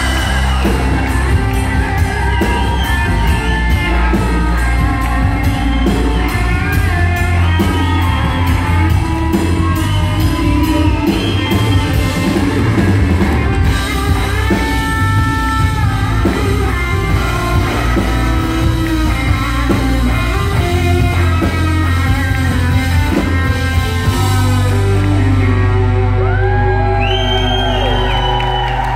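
Live amplified band playing a rock-style song: electric and acoustic guitars over drums and bass, with melodic lead lines and a steady beat.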